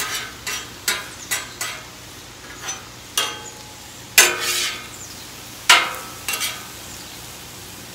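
Metal spatula scraping and clacking on a flat-top griddle as it turns onions and mushrooms, over a steady sizzle of the vegetables frying in oil. The strokes come short and quick, several in the first two seconds, with the loudest two about four and six seconds in.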